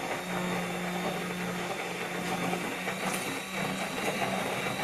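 Handheld electric immersion blender running steadily in a bowl of lemon curd, blending in the butter to make the curd smooth.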